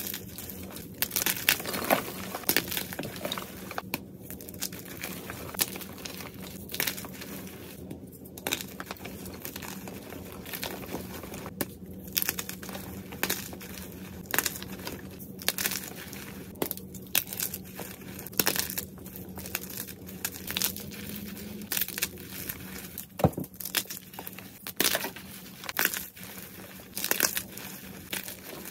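Fresh blocks of white gym chalk being broken and squeezed by hand, giving many crisp, irregular crunches and crumbles as the blocks break into powder.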